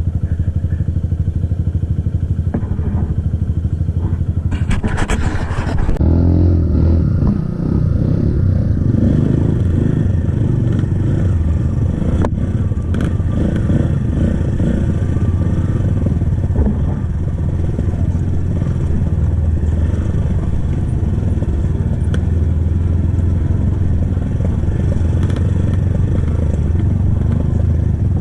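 Kawasaki KLX trail bike's single-cylinder four-stroke engine through its stock exhaust, running under load with the revs rising and falling as the throttle is worked off-road.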